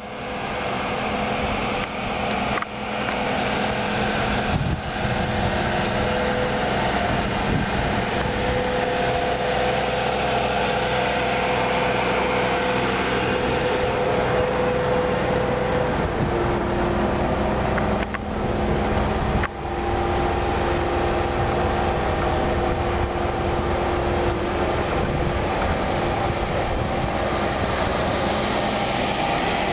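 A Starcraft shuttle bus on a Ford E450 chassis, with a 6.8-litre Triton V10 petrol engine, running steadily, with a few steady tones that shift in pitch now and then. The sound drops briefly four times, twice early on and twice around the middle.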